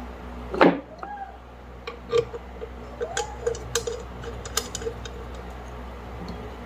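Light metallic clicks and taps as ceiling fan parts are handled and fitted. There is one loud squeal about half a second in that falls quickly in pitch, and two short squeaks later.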